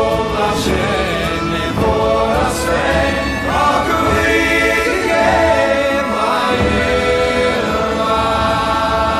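Music: a song sung by several voices together, like a choir, with no words picked out.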